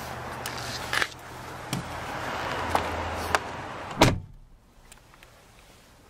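A 1990 Toyota Camry's passenger door is pulled shut with one loud thud about four seconds in, after a few light knocks and clicks as someone settles into the seat. Once the door is closed, the outside background noise drops away to a quiet cabin.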